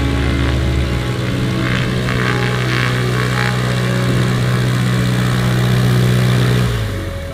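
Small single-engine propeller airplane running at low power while taxiing. It is steady, then fades near the end.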